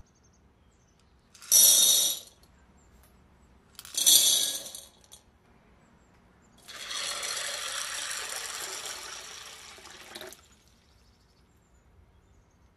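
Dried chickpeas poured into a glass bowl in two short rattling pours, each about half a second, then water poured over them for about four seconds to soak them.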